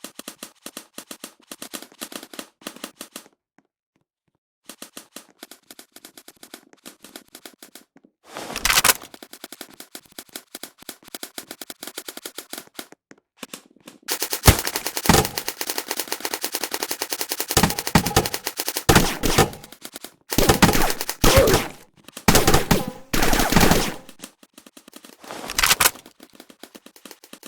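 Airsoft guns firing on full auto: quick rapid-fire clicking at first, a short burst about eight seconds in, then a long sustained burst followed by several shorter bursts.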